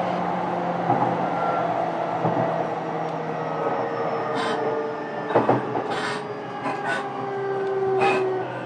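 JR East E233-series electric train running, heard from inside a motor car: steady rumble with the whine of the inverter and traction motors, whose tones drift slowly down in pitch. A handful of sharp clanks from the wheels over rail joints come in the second half.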